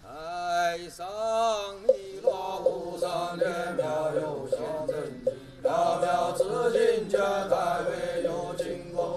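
Male Daoist priests chanting a liturgical hymn in unison, a slow melodic sung recitation, with light regular knocks of a hand-held wooden fish keeping time.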